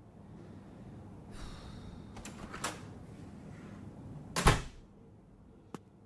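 Produced sound effects: a low gurgling rumble lasting about four seconds, with a few faint clicks, then a single loud thump about four and a half seconds in, followed by a few light ticks.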